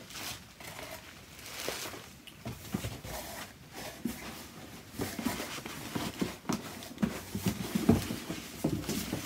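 Bubble wrap and packing being rustled and crinkled as it is pulled out of a cardboard shipping box, then cardboard boxes being handled, with irregular scrapes and low knocks in the second half.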